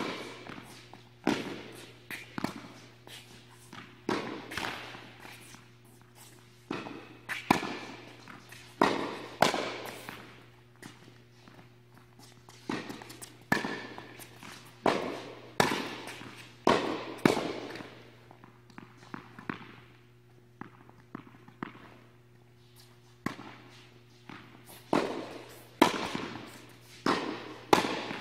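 Tennis balls struck by rackets and bouncing on a hard indoor court in a rally: irregular sharp pops that echo through the hall, with a lull of a few seconds past the middle. A steady low hum runs underneath.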